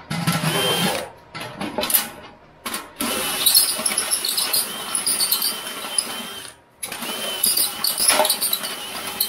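Cordless drill running in bursts as it bores through and works the holes in the stove's thin sheet steel, a motor whine with gritty metal noise. It stops briefly about a second in and again about two-thirds of the way through.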